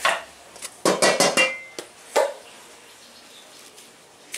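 Kitchen clatter: a knock, then a quick run of clinks of utensils against containers about a second in, one of them ringing briefly, and another knock about a second later.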